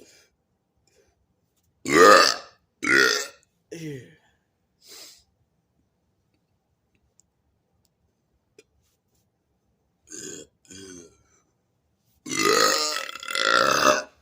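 A man burping on purpose, one loud burp after another: a loud burp about two seconds in, followed by three shorter, fainter ones, then two faint short burps around ten seconds in and a long, loud burp near the end.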